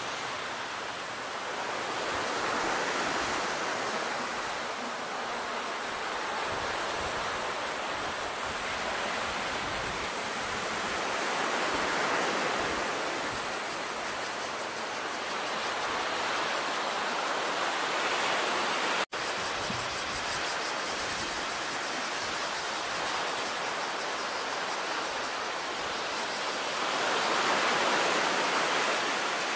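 Sea surf washing against a breakwater of concrete wave-breaker blocks: a steady rushing hiss that swells and fades every several seconds. The sound cuts out for a split second about two-thirds of the way through.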